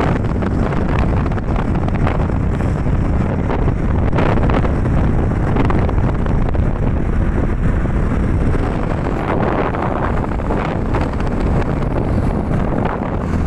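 Wind buffeting the microphone of a moving motorcycle, a loud, steady rumble with the bike's road and engine noise underneath.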